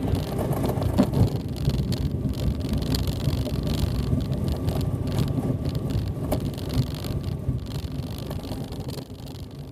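Tecnam ultralight rolling along the runway after landing, engine at idle with the propeller turning: a steady, rough low rumble that fades out near the end.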